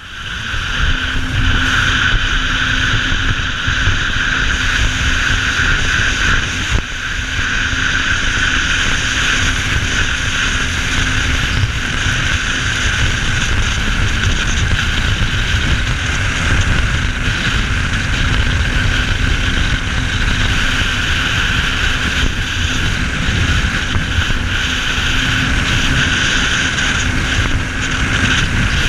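Jet ski running at speed across a lake: steady engine and jet-pump noise with heavy wind buffeting on the camera and water rushing past. It swells to full level within the first second.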